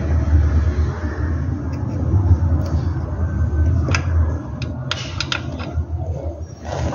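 Low, steady rumble of handling noise close to the microphone, with a few sharp metallic clicks about four and five seconds in as a car door check strap is fitted at its bracket.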